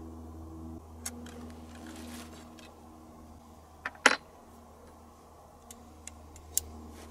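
Short clicks and clinks as muzzleloader reloading gear is handled at a shooting bench, the sharpest a little after four seconds in, over a faint steady low hum.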